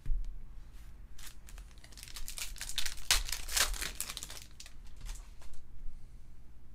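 A foil trading-card pack of 2019 Topps WWE Undisputed being torn open and crinkled in the hands, crackling loudest about two to four seconds in, after a short thump at the very start.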